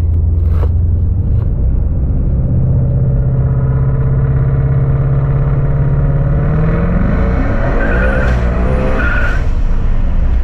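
Supercharged car engine heard from inside the cabin under a brake-boosted pull: a steady drone for about six seconds, then revving up quickly with a high whine as the tyres lose traction and spin.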